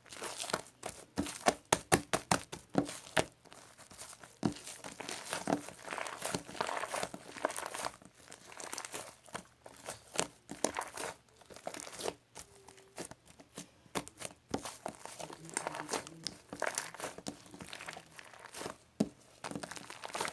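Handling noise: irregular crinkling and rustling with many sharp clicks and taps, as of something being handled close to the microphone.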